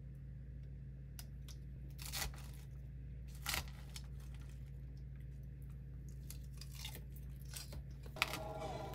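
Fork tossing a salad of crisp lettuce in a plastic container: a few short crunchy rustles and light clicks, the loudest about two and three and a half seconds in, over a steady low room hum.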